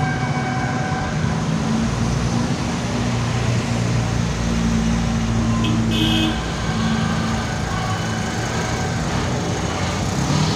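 Engines of classic cars running steadily as a line of them drives slowly past, with a short high beep about six seconds in.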